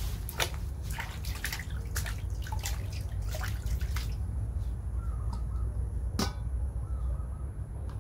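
Water splashing and dripping in a steel basin as a baby monkey is bathed by hand, with water scooped and poured over it. The splashes come thick and fast in the first half, thin out after that, with one sharp splash about six seconds in.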